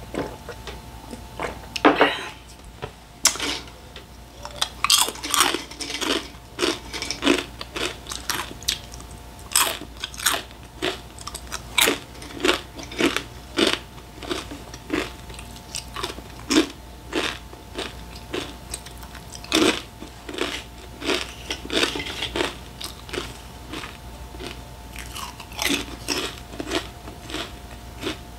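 Close-up crunching of crisp packaged snacks being bitten and chewed, about two crunches a second, with brief pauses between mouthfuls. A faint steady hum runs underneath.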